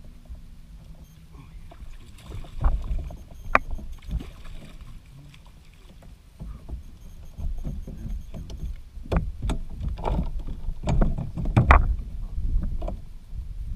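Scattered knocks and clatter on a plastic fishing kayak as a just-landed bass and the rod are handled aboard, over a steady low rumble. The loudest knocks come about nine to twelve seconds in.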